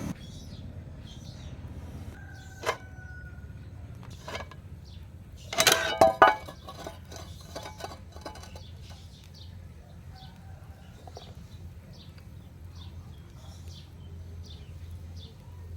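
Small bird chirping in short, high, repeated calls. A single sharp knock comes a few seconds in, and a cluster of loud knocks falls near the middle.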